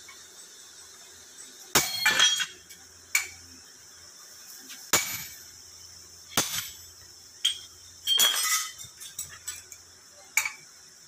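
Sledgehammer blows on a handled steel chisel held against a steel bar: about eight sharp metallic clinks at uneven intervals, each with a short ring, with a quick double strike near the two-second mark and a rattling cluster a little after the eight-second mark.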